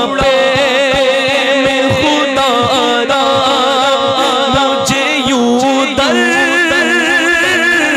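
A man singing a naat unaccompanied by instruments, drawing out long melismatic phrases with wavering held notes, over a steady low beat of about two to three thuds a second.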